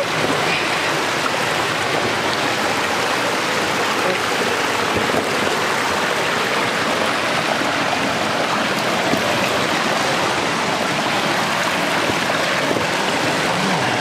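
Steady rushing of stream water running over rocks, an even, unbroken sound.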